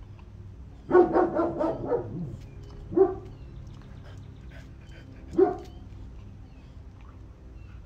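Dog barking: a quick run of about five barks about a second in, then two single barks, the second about two and a half seconds after the first.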